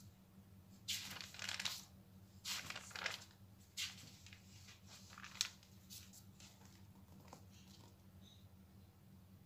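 Thin paper pages of a soft-cover booklet being turned by hand, with several short rustles in the first half, then only faint paper ticks.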